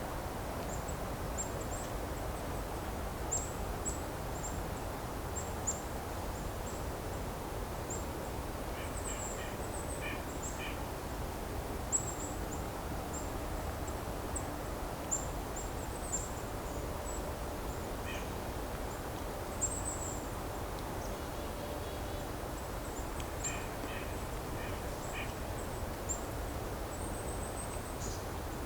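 Golden-crowned kinglets giving their very high, thin call notes over and over, in short runs of three or four. A few short, lower calls from other birds of a mixed flock come in now and then, over a steady low background hiss.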